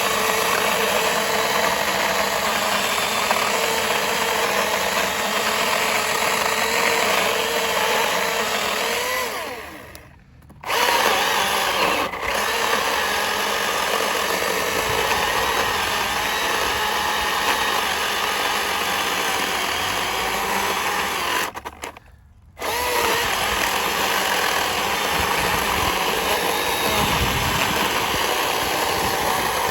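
Milwaukee Fuel battery chainsaw running at full speed, cutting through a log, its electric motor whine wavering in pitch as the chain loads in the wood. It cuts out abruptly twice, for about half a second each time, then runs again.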